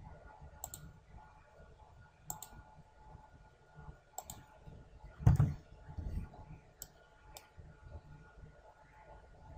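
Computer mouse clicks, single sharp clicks a second or two apart, as points of a spline are placed. About five seconds in there is a louder, dull low thump.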